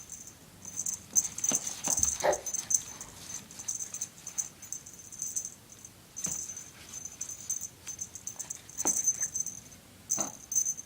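Small cat toy being shaken, jingling and rattling in irregular bursts with short pauses between them, and a few light knocks.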